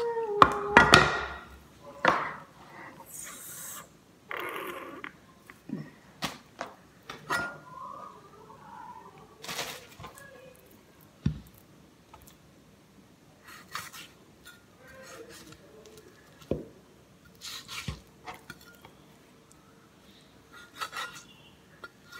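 A meat cleaver cutting chicken off the bone: irregular knocks, taps and scrapes of the blade, loudest and busiest in the first couple of seconds, then sparser clicks.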